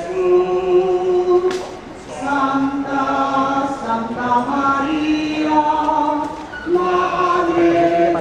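A group of voices singing a slow hymn without accompaniment, in long held notes, with two short breaks between phrases.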